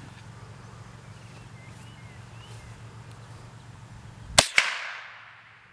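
A single .22 LR rifle shot about four seconds in, followed a moment later by a second sharp crack and a fading ring.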